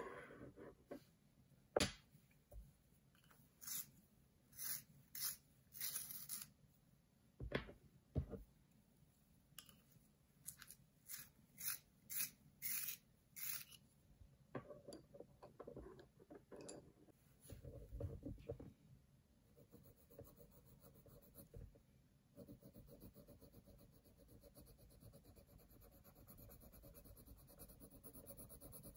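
Coloured pencils being handled: a run of short crisp rasps about once a second, then a few duller knocks. About 22 seconds in, a soft steady scratching starts as a coloured pencil shades on sketchbook paper.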